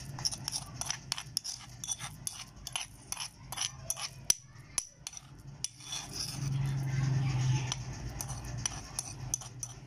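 Kitchen utensils clinking and scraping, a spoon against a dish, in quick irregular taps with a louder scraping stretch about seven seconds in.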